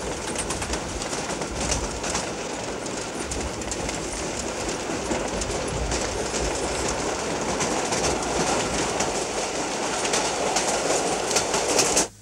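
Freight train of boxcars rolling past: a steady rumble with the clickety-clack of wheels over rail joints, cutting off suddenly near the end.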